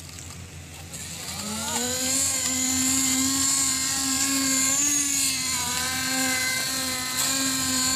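A small engine revs up about a second and a half in, then runs at a steady high speed with a droning whine.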